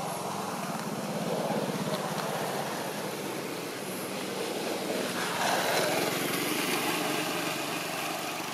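A motor engine runs steadily in the background, swelling louder about five to six seconds in, as if passing by.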